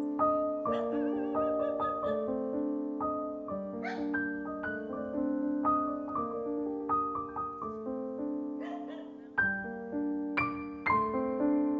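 Background piano music: a slow melody of single notes over sustained chords.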